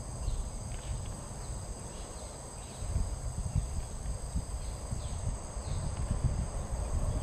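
Insect chorus: a steady high drone of several held tones. Wind rumbles on the microphone, growing stronger about three seconds in.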